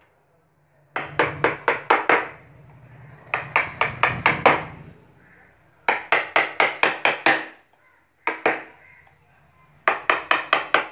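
Wooden mallet striking a carving gouge as it cuts into a wooden plank, in quick runs of four to seven blows, about five a second, with short pauses between runs.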